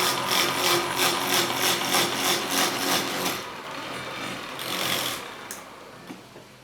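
Wood lathe running with a turning tool cutting the spinning wood in quick repeated strokes, about three a second, then one more cut about five seconds in before the sound dies away about six seconds in.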